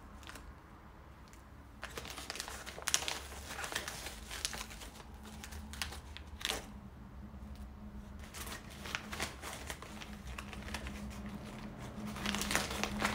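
Stiff sego gele headwrap fabric rustling and crinkling as it is folded and tucked around the head by hand, in irregular bursts that start about two seconds in.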